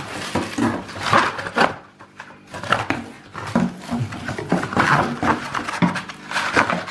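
Cardboard packaging and plastic vacuum-cleaner parts being handled and lifted out of the box: irregular rustling with knocks and clatters.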